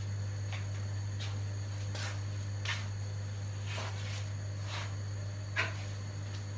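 A pot of bamboo-shoot soup heating on the stove, not yet at a full boil: scattered soft pops and small crackles at irregular intervals, one a little louder near the end, over a steady low hum.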